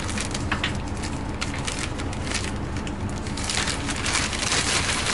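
Paper shopping bag crinkling and rustling as it is handled close up, in dense crackles that get louder and thicker in the last second and a half.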